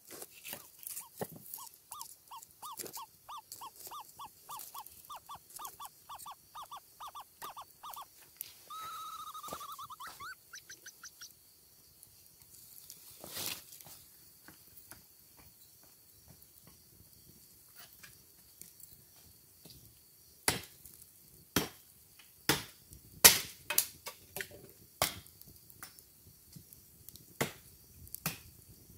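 Wood crackling in a campfire, with sharp loud pops through the last third. Before that, an unseen animal gives a quick run of short, high calls, about four a second for some eight seconds, then a wavering call.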